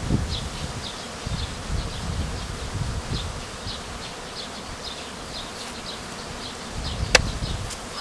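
Honeybees buzzing around the entrances of straw skep hives. A short high chirp repeats about twice a second, and there is one sharp click about seven seconds in.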